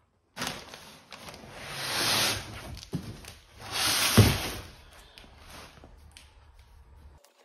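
Large corrugated cardboard panels being swung, scraped and folded shut around a shipping box: two rustling, scraping swells, with a dull thud about four seconds in.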